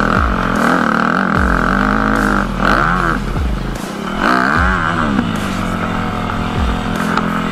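Off-road dirt bike engine running and revving, its pitch rising and falling a couple of times over a steady drone.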